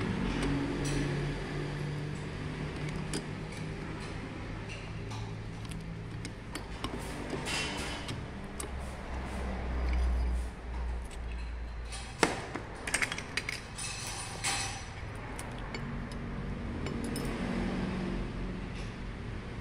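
Metal parts of a Bosch diesel injection pump clinking and tapping as the pump is taken apart by hand, over a low steady hum. A sharp metallic click comes about twelve seconds in, followed by a short flurry of light clinks.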